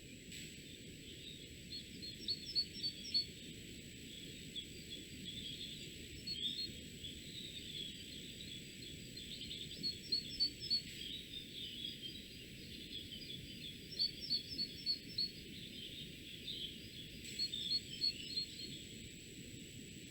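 A songbird singing, repeating short phrases of quick high notes about every three to four seconds, over a steady low outdoor hiss and a thin steady high whine.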